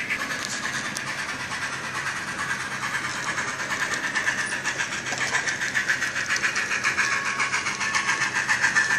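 Steam-locomotive exhaust chuffing from a model locomotive's Tsunami sound decoder, played through its small onboard speaker. The beat is quick and even as the 2-6-6-0 Mallet runs, and it gets louder in the second half as the engine comes closer.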